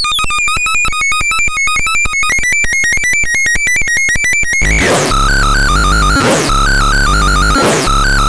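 Synthesizer music: fast pulsing repeated notes for the first four and a half seconds or so, then a sudden switch to a heavy low bass line with a sweeping sound recurring about every second and a half.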